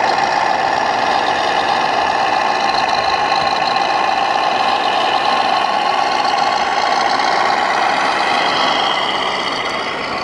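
1/14-scale RC model machinery running: a steady, engine-like diesel drone with layered whining tones, shifting slightly about eight seconds in.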